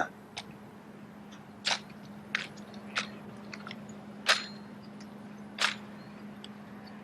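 Six short, sharp clicks at irregular intervals over a steady low hum.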